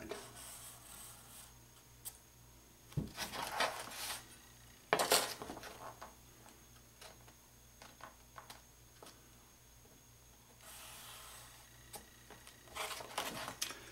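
A steel square being slid, shifted and set down on cardboard, with scrapes and knocks. Later comes a soft rubbing of about a second and a half, a felt-tip marker drawing a line along the square's edge, followed by further scraping.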